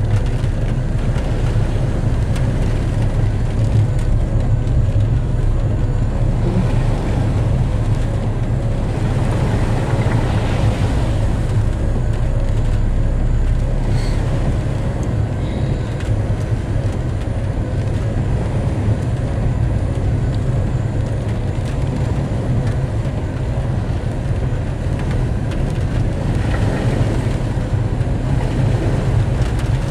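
Vehicle engine running and tyres on a wet road, heard from inside the cabin: a steady low drone, with brief swells of hiss about ten seconds in and again near the end.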